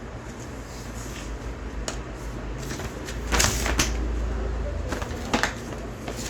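Handling of unboxed packing contents: scattered rustles and light knocks, with a louder scraping rustle about three and a half seconds in.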